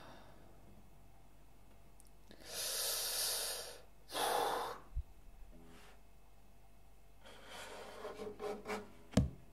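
A person breathing out in a long, breathy sigh, then a shorter lower breath just after, like a waking yawn. Later come a string of soft short sounds and one sharp knock near the end.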